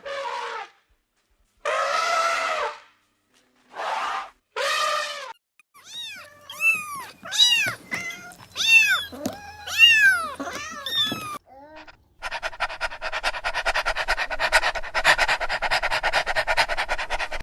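A sequence of different animal calls: a few short calls with several overtones, then a run of quick calls that each rise and fall in pitch, and from about twelve seconds in a long, rapidly pulsing call.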